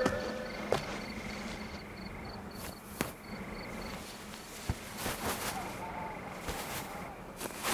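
Insect chirping in a regular pulsing rhythm over a low steady hum; the chirping stops about halfway. In the second half, scattered sharp clicks and rustles of fabric as a padded jacket is handled.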